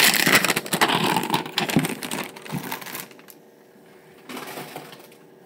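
Packaging crinkling and crackling as it is handled and pulled off a plastic brush holder, for about three seconds, then dropping to a faint rustle.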